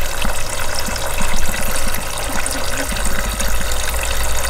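Water running steadily from the faucet spout of a small pet drinking fountain, splashing into its plastic basin.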